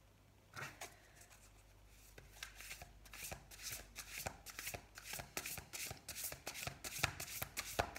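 A deck of oracle cards being shuffled by hand. After a single light tap, a quick, continuous run of card clicks and rustles starts about two seconds in and keeps going.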